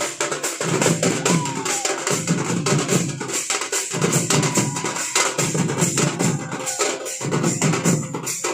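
Gond tribal baja band playing: several drums beaten hard in a fast, dense rhythm, with a faint high wind-instrument line over them.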